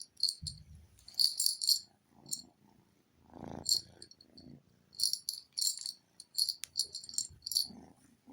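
Kitten's rattle ball toy rattling in short, quick bursts as it is rolled about.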